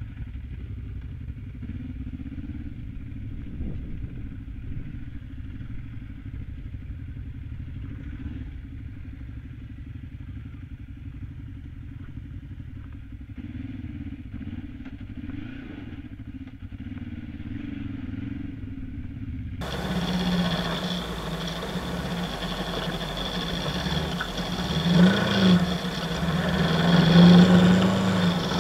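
A Kawasaki KLE 500's parallel-twin engine running at a steady pace on a dirt trail, muffled as picked up by a helmet camera. About two-thirds of the way through, the sound cuts to a clearer, louder motorcycle engine whose revs rise twice near the end.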